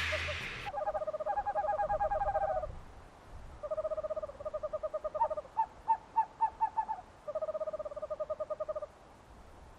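Owl calling in a series of rapid, even trilled phrases, with a run of separate short notes in the middle. The sound effect is laid over the footage. A noise fades out just at the start.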